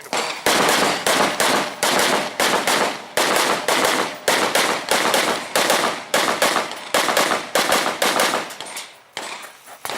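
Semi-automatic AR-15-style rifle fired rapidly at close targets: a long run of shots, several a second in quick strings, thinning out near the end.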